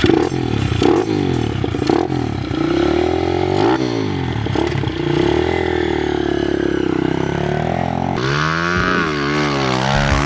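Kawasaki KLX110 pit bike's single-cylinder four-stroke engine, through an aftermarket PC exhaust, being ridden: the revs climb and drop again and again as the rider works the throttle and shifts, swinging up and down more quickly near the end.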